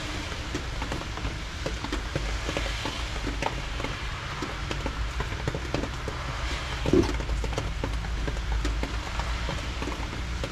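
Small clicks and scrapes of taped wires and a coat-hanger wire being dragged through the engine bay toward the firewall grommet, over a steady hiss and low rumble. One louder knock comes about seven seconds in.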